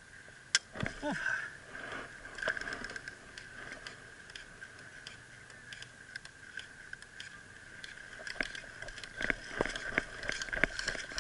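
Airsoft gunfire: irregular sharp shots and BB hits, some in quick clusters near the end, over a steady high whine.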